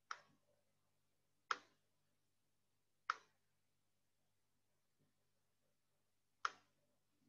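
Computer mouse clicks: four sharp single clicks a second or more apart, with a faint one between the last two, against near silence.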